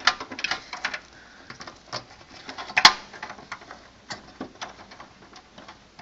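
A plastic power connector and its cables being handled and pushed against a steel PC case: scattered small clicks and rustles, with one sharp click just before three seconds in.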